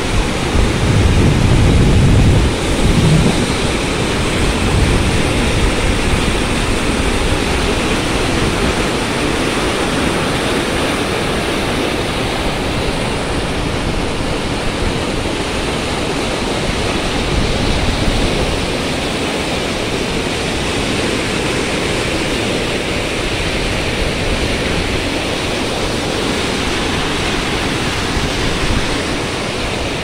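Floodwater from an overflowing lake rushing over a spillway in churning white rapids: a loud, steady rush of water, with a heavier low rumble in the first few seconds.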